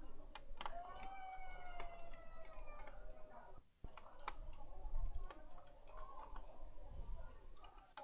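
Small screwdriver clicking and ticking against screws and the plastic case as the screws inside a Dell Inspiron 7520 laptop are undone, with scattered light taps. Near the start a faint tone with overtones sounds for about two seconds, slowly falling in pitch.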